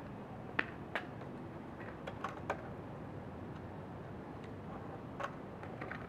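About five sharp, short clicks, scattered irregularly over a steady background hiss.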